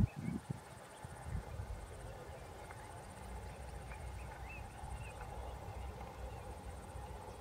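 A high-pitched insect trill pulsing in bursts of about a second, over a low rumble. A few faint short bird chirps come through, and there are a couple of low thumps in the first half-second.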